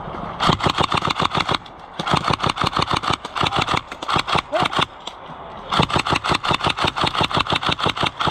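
Automatic airsoft gun firing in three long bursts of rapid, evenly spaced shots, about a dozen a second, with short pauses between bursts.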